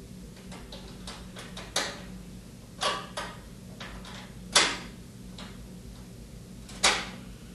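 Scattered short metal clicks and taps as a ground-wire terminal and its screw are handled against the sheet-metal panel of a washer's control cabinet, the sharpest about halfway through and another near the end, over a steady low hum.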